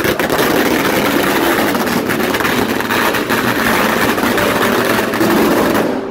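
A long string of firecrackers going off in a rapid, continuous crackle of bangs, starting abruptly and stopping abruptly near the end.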